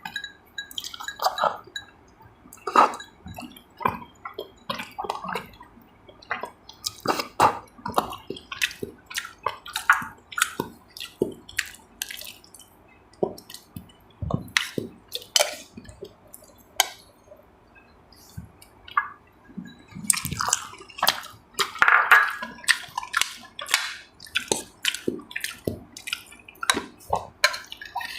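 Close-up mukbang eating sounds: wet chewing and slurping, heard as a dense, irregular run of short clicks and smacks.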